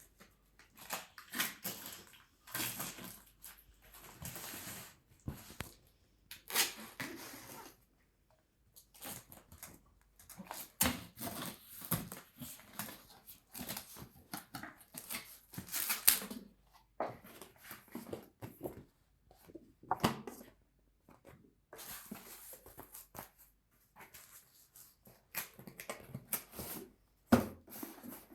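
Irregular rustling, scraping and sharp knocks of things being handled, with no steady motor sound.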